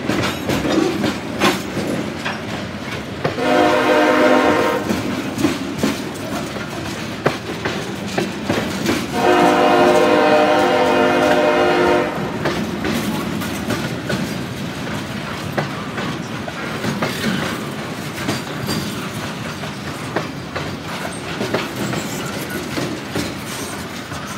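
Freight train rolling past with a steady rumble and wheels clicking over the rail joints as hopper cars and boxcars go by. The diesel locomotive's horn sounds twice: a short blast about three seconds in and a longer, louder blast of about three seconds near the ten-second mark.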